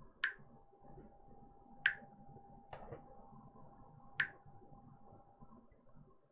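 Three sharp, short clicks, spaced roughly one and a half to two and a half seconds apart, with a softer knock between the second and third, over a faint steady tone.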